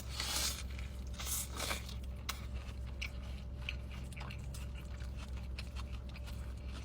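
Close-miked crunching bites and chewing of food: two longer crunches in the first two seconds, then scattered wet clicks and smacks of chewing.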